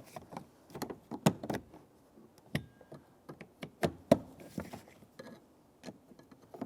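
Irregular sharp plastic clicks and taps as a window crank removal tool works behind a manual window crank to free its retaining clip. A couple of the knocks, about a second in and about four seconds in, are louder than the rest.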